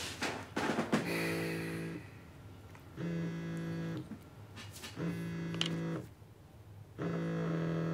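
Mobile phone signalling an incoming call with a steady buzz that comes in one-second pulses, four times, a second's pause between each.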